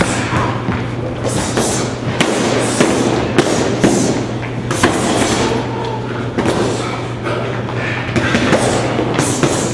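Irregular thuds and slaps of gloved punches and kicks landing on heavy punching bags, several people striking at once.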